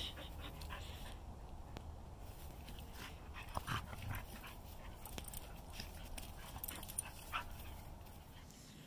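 A dog whimpering faintly in a few short, high squeaks over a low steady hum.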